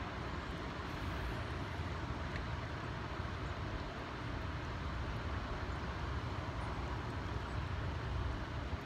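Steady outdoor noise with wind buffeting the microphone, a low uneven rumble under an even hiss, with no distinct events.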